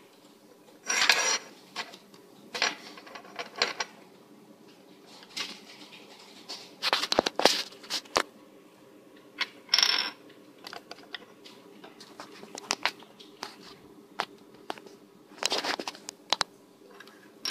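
Handling noise: scattered clicks, taps and short scrapes as a small soldering iron and its cable are moved about on a wooden desk, with a faint steady hum underneath.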